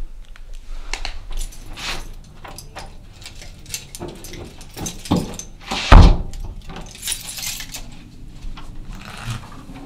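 A bunch of keys jangling amid small clicks and knocks, with a door shutting in a loud thud about six seconds in.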